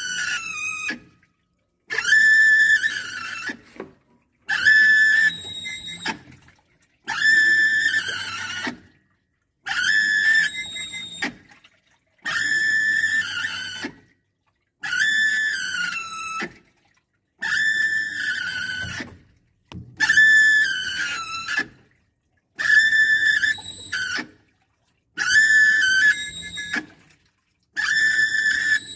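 Top-loading washing machine agitating with a loud high-pitched whine on each stroke. The whine holds steady for about two seconds, falls in pitch as the motor stops, and after a short pause starts again, about every two and a half seconds. The whine is the sign of a failing gear assembly.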